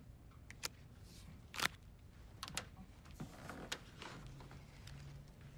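Quiet room tone with a handful of soft, scattered clicks and taps, and a faint low hum in the second half.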